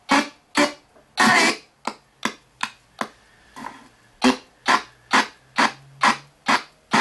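RTC ghost box sweeping through radio stations: short chopped bursts of radio sound with gaps between them, one longer burst about a second in, settling into an even rhythm of about two bursts a second.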